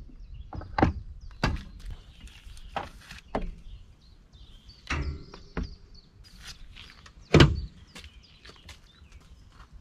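A series of irregular knocks and thuds, as of things being handled and set down, with the loudest knock about seven seconds in.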